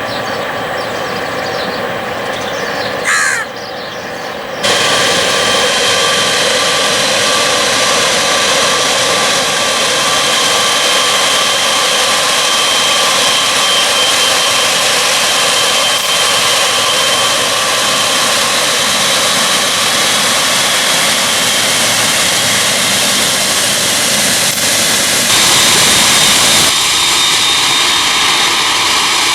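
A crow caws over a quieter background rumble. About five seconds in, jet airliner engines begin running loud and steady, a dense roar with a whine over it, which grows louder near the end.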